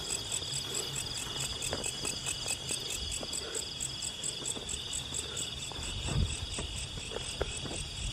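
Night insect chorus of crickets: a steady high trill with a fast, even chirping pulse over it.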